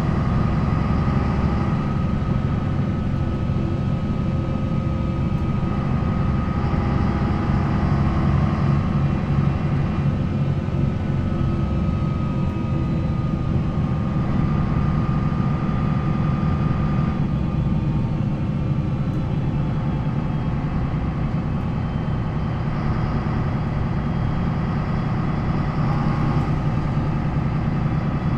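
MAN NL 263 city bus's D28 diesel engine running steadily, with a thin, slowly wavering whine above the engine sound.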